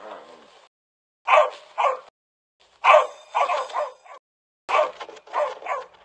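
A dog's barks and yips played as separate sound-effect clips: two quick barks, then two runs of three or four barks, each clip cutting off into dead silence.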